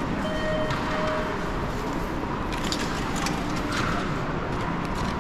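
Station concourse ambience: a steady hollow hum of the large tiled hall, with a faint short tone near the start and a few light clicks around the middle.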